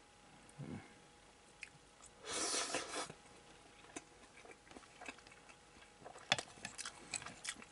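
Eating sounds: quiet chewing of crumbled hamburger steak and a short breathy burst about two and a half seconds in, then a metal spoon clicking against a ceramic plate several times near the end.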